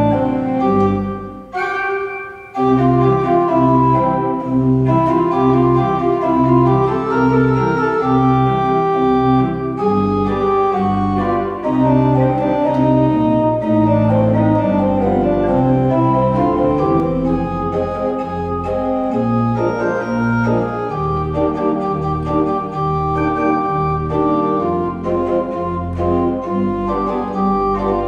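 Pipe organ playing a piece with chords and repeated bass notes. The sound falls away briefly about two seconds in, then the organ comes back in full.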